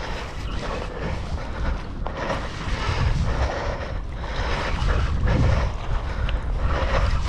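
Wind buffeting the microphone over a steady rumble on an open boat at sea, swelling in gusts every second or two.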